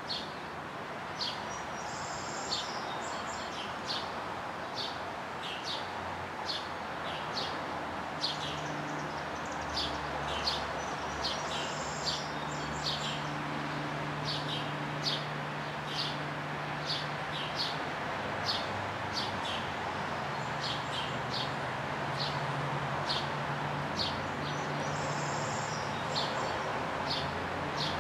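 A bird chirping repeatedly outdoors, short chirps about one to two a second, with a few brief higher twitters, over a steady background hiss. A low steady hum joins about seven seconds in.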